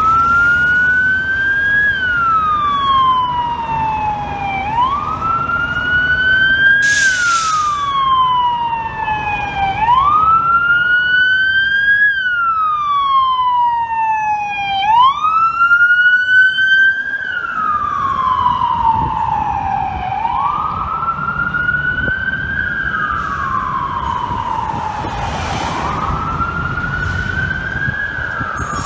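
An NYPD Emergency Service Unit truck's siren wailing, its pitch rising and then falling in a slow cycle about every five seconds. Street traffic runs underneath, with a short hiss about seven seconds in.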